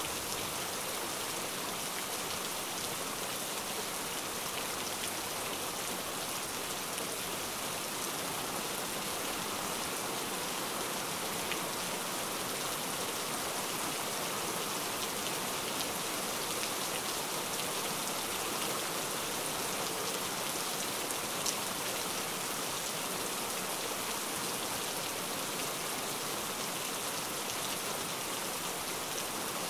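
Steady hiss of recorded rain with a few faint drop ticks, the masking track of a subliminal audio.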